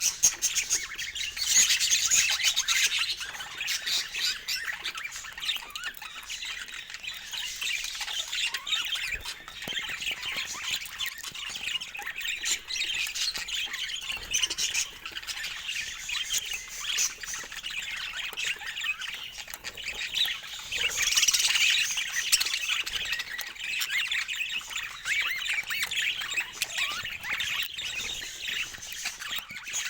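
Budgerigars chattering: a continuous stream of rapid, high-pitched warbles and calls, louder near the start and again past the two-thirds mark.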